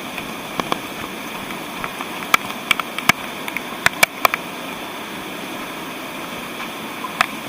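Steady rush of falling water from a waterfall, with scattered sharp clicks and taps over it, clustered around the middle.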